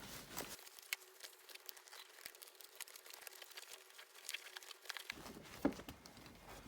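Faint handling of a 3D-printed plastic MOLLE holder being fitted onto a vest: light rustling with scattered small clicks, and a sharper click about a second in and again near the end.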